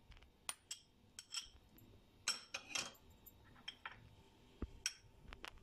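A metal spoon clinking and scraping against a plate and mixing bowl as ingredients are scraped in: a few light, sharp clinks scattered through, with soft rustle between.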